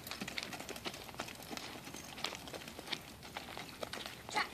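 Pony hooves on a sand arena: faint, irregular soft hoofbeats and scuffs. A brief louder sound comes near the end.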